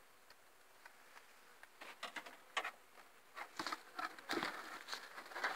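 Faint steady hum of honeybees at a hive, then irregular clicks, knocks and rustles starting about two seconds in and growing denser toward the end.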